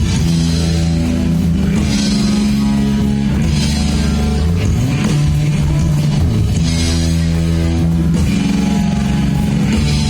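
Live rock band playing: electric guitar chords over drums and cymbals, the chords changing every couple of seconds.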